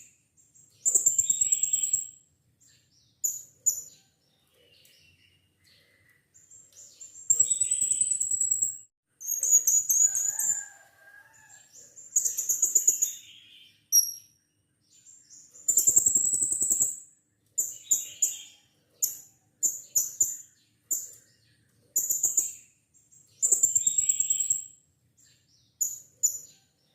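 Blue-crowned hanging parrot (serindit) calling: repeated high-pitched, shrill calls in bursts of a second or two, separated by short pauses.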